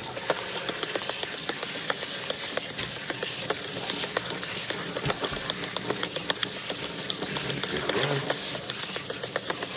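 Kitchen sink tap and sprayer running water over sliced carrots in a stainless steel colander: a steady hiss with water spattering on the carrots and the metal.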